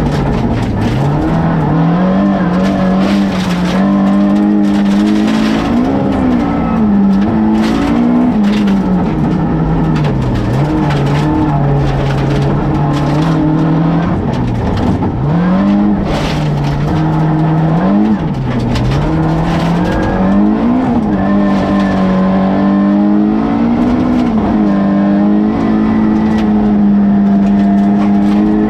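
Rally car engine heard from inside the cabin, revving hard up and down through the gears with sharp drops at each shift, over a steady rumble of tyres on gravel and frequent knocks and clicks from the rough stage surface.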